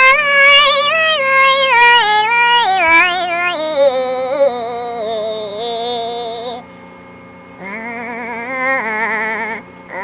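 Wordless high-pitched singing: a melody of stepped notes falling over the first few seconds, then a long held note, a short pause, and wavering notes with vibrato near the end.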